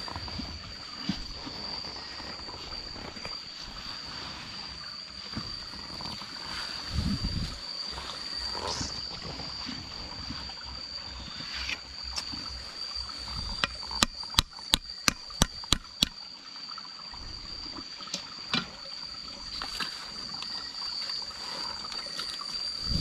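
Water trickling and lapping, with a steady high-pitched whine throughout and a quick run of about eight sharp clicks a little past halfway.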